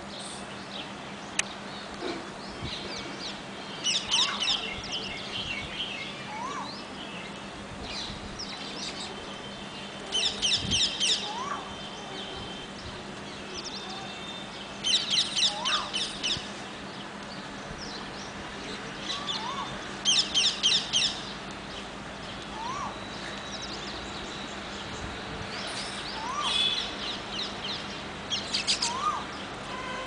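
A flock of baya weavers chattering in bursts of rapid high chips, each about a second long and coming every few seconds. Between the bursts, a short rising call repeats every few seconds.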